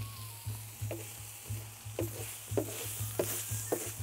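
A wooden spoon stirring and scraping roasted huitlacoche and vegetables on a hot clay comal, the food sizzling, with short scrapes about two to three times a second.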